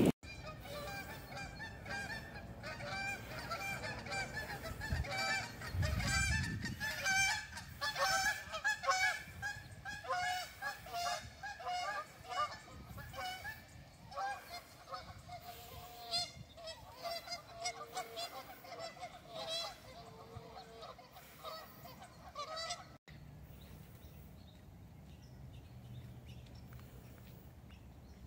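A flock of geese honking: many short, repeated calls overlapping, busiest in the first half and thinning out toward twenty seconds. About twenty-three seconds in the sound cuts to a quieter outdoor background.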